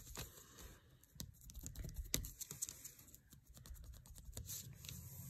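Faint, irregular light taps and clicks as a foam paint sponge dabs a small wooden cutout on a paper-covered table, with one sharper tap about two seconds in.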